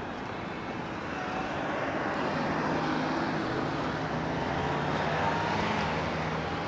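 A car driving past close by. Its engine hum and tyre noise swell to their loudest through the middle, then ease off near the end.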